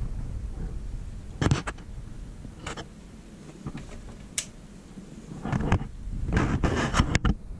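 Handling noise: scattered light knocks, clicks and scrapes, a few isolated ones and then a denser cluster near the end, over a low steady shop rumble.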